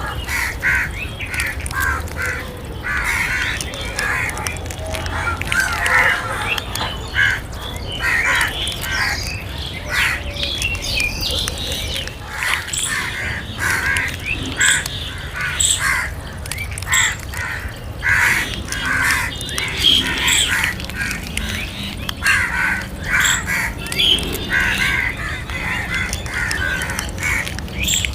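Several crows cawing, short calls following one another a few times a second and at times overlapping.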